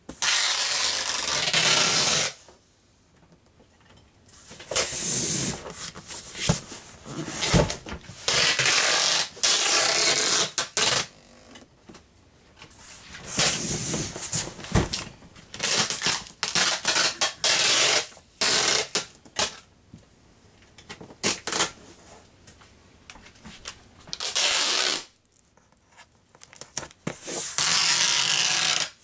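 Packing tape pulled off a handheld tape gun dispenser in long hissing strips onto cardboard boxes, repeated several times, with cardboard rubbing and a few sharp knocks in between.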